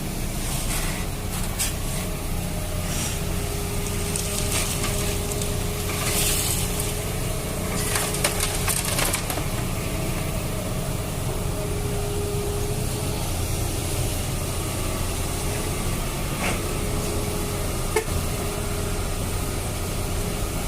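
Toy excavator digging and scooping sand, with a scraping, crunching rattle of sand and plastic in several bursts, a thin steady motor whine, and a couple of sharp clicks later on.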